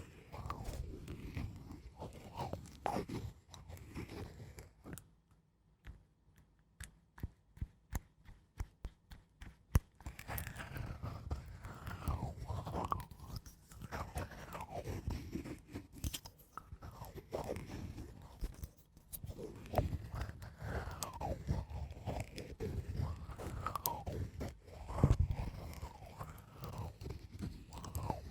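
ASMR scratching: slow, irregular scratching strokes on a surface, with a quieter run of quick light clicks in the middle before the scratching resumes.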